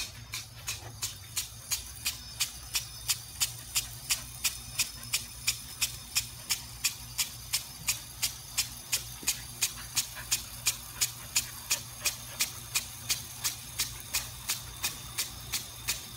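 Impact lawn sprinkler ticking steadily as its arm strikes the water jet, about two to three sharp clicks a second over the hiss of the spray. The clicks start faint and grow louder within the first couple of seconds.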